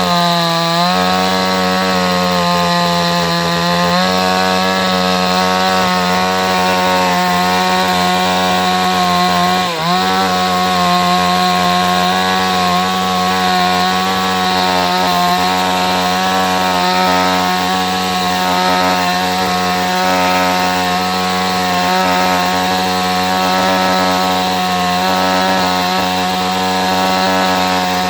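Two-stroke chainsaw running at a steady high speed as it carves wood. There is one brief dip in pitch about ten seconds in, after which it holds steady again.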